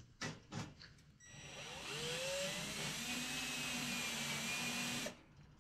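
Cordless drill spinning a countersink bit into a screw hole in steel sheet, chamfering it so a screw sits flush. About a second in the drill spins up with a rising whine, runs steadily for about four seconds, then stops abruptly.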